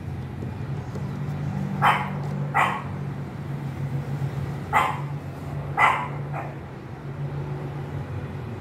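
A dog barking, five short barks in two pairs and a weaker last one, over a steady low hum.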